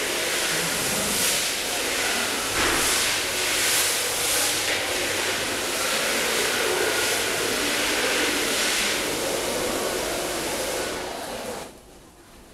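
Loud, steady hissing noise with faint voices mixed in, swelling a few times, then dropping away abruptly near the end.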